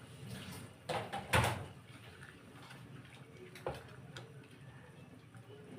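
A few short knocks and clatters: two close together about a second in, the second and loudest about one and a half seconds in, and two fainter ones between three and a half and four and a half seconds in.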